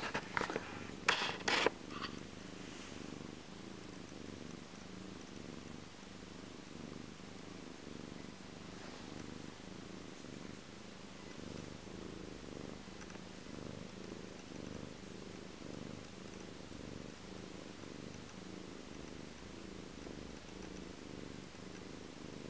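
Domestic cat purring steadily right at the microphone, a continuous low pulsing hum. A few sharp clicks sound in the first two seconds.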